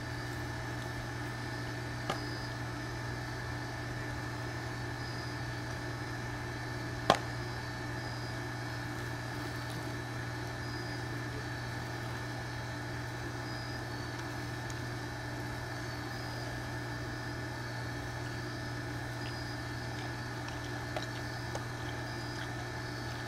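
A tiger chewing whole prey, with a few sharp cracks of bone being crunched, the loudest about seven seconds in, over a steady machine hum.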